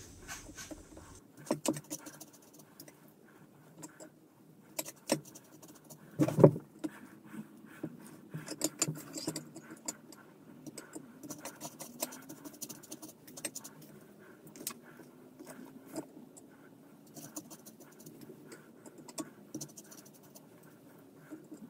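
Hands coating chicken pieces in dry panko breadcrumbs: scattered light crunching, scratching and small clinks against enamel bowls and a metal plate, with one louder knock about six seconds in.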